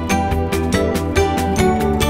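Background music with a steady, quick beat over held notes and a bass line.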